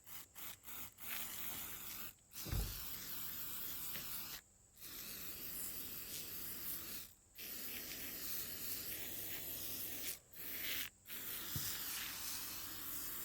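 Aerosol can of spray-on varnish stripper hissing as it is sprayed onto wooden revolver grips. It starts with a few short spurts, then runs as about six long blasts with brief pauses between them, laying on a heavy coat.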